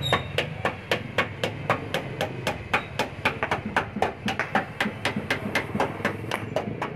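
Small body hammer tapping rapidly on the sheet-metal fender of a Suzuki Alto, about four light, even strikes a second: dent work, shaping the fender's edge.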